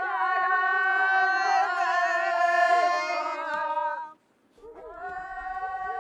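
Women's voices wailing in a mourning lament, held, wavering notes sung together. The sound breaks off for a moment about four seconds in, then a held note resumes.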